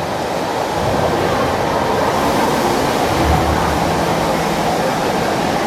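Steady murmur of a large crowd talking at once, blended into a continuous wash of noise with no single voice standing out.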